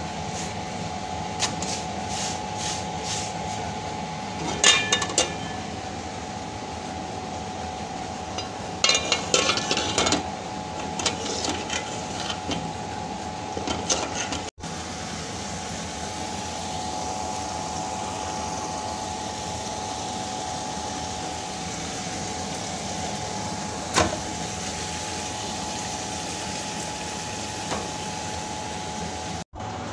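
A utensil clattering and knocking against a pan of keema and potatoes, in two bursts of quick knocks, then a single sharp knock later on. Underneath runs a steady hiss of cooking with a faint steady hum.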